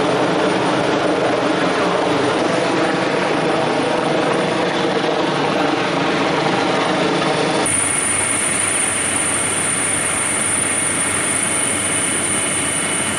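Steady helicopter engine and rotor noise. About eight seconds in it changes abruptly to a thinner, hissier mix with a high whine.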